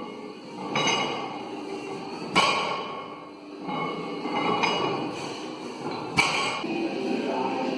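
Loaded barbell touching down on the floor between deadlift reps: two sharp metal clanks of the plates about two and a half and six seconds in, over background music.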